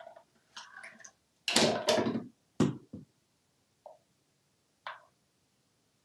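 African grey parrot knocking and rattling its plastic toys on a bathroom countertop: a few short knocks and rattles, the loudest about one and a half to two and a half seconds in.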